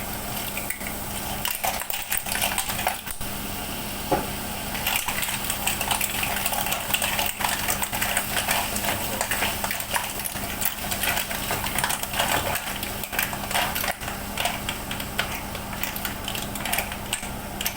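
Clam shells clattering and clinking against a cooking pot as they are tipped in and stirred, many quick knocks close together. A steady low hum runs underneath.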